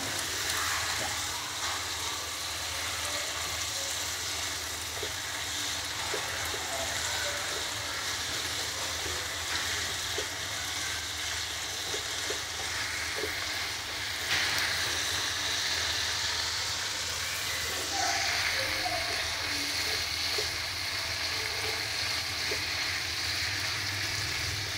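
Bitter greens and bamboo shoots sizzling as they stir-fry in a pan, turned with chopsticks, with small clicks of the chopsticks against the pan. The sizzle grows louder about 14 seconds in and again a few seconds later.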